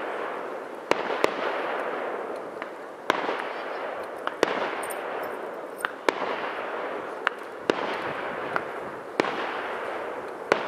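Aerial fireworks shells bursting: about nine sharp bangs at uneven gaps of roughly one to two seconds, over a steady hiss that swells after each of the louder ones.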